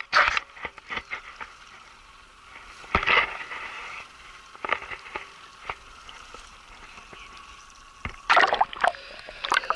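Water sloshing and splashing around a small boat, in short bursts about three seconds in and again near the end, with scattered light knocks in between.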